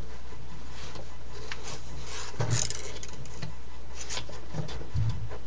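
Rubbing, scraping and knocking of things being handled close to the microphone, over a steady low hum; the loudest knocks come about halfway through and near the end.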